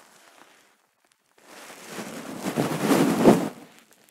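Rustling and rubbing of bedding fabric and a hand close to the microphone. It swells from about a second and a half in, is loudest around three seconds in, and dies away just before the end.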